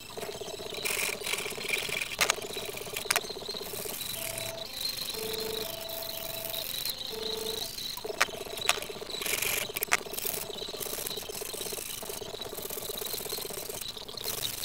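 Hand scraping and sanding on an old wooden cart wheel's hub, in short bursts with a few sharp clicks, over a steady buzzing drone that shifts between a few low pitches.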